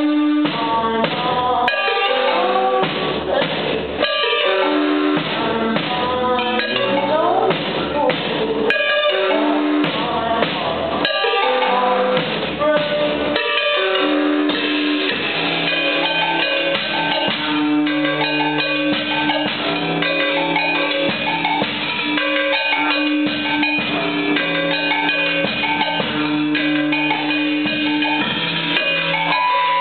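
Live three-piece band playing without vocals: drum kit with keyboard and electric guitar. For the first half the playing is choppy and stop-start. About halfway through it settles into a steady, fuller groove with one held note coming back again and again.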